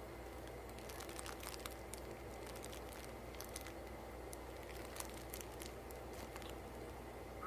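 Plastic fish bag crinkling in the hands as it is turned and held up, with scattered small crackles over a steady low hum.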